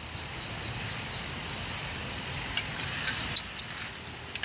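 Hot wok sizzling as vinegar is poured onto meat frying in its rendered fat. The sizzle swells about halfway through, with a few light ticks.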